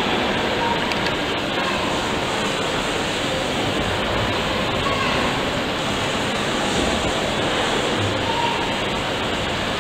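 Steady, even rushing noise with no clear beat from a running 1883–84 James Watt & Co sewage pumping engine, with faint voices behind it.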